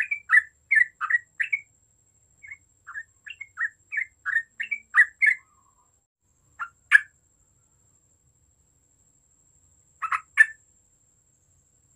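Yellow-vented bulbul (cucak trucuk) singing: a fast string of short bubbly notes for about five seconds, then a few single notes with a pause of a couple of seconds, and a quick pair near the end.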